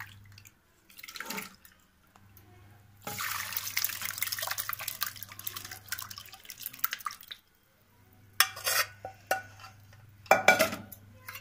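Whey from curdled milk pouring through a strainer as the chhena is drained, a steady rush of liquid that stops abruptly. Two short, loud bursts of sound follow near the end.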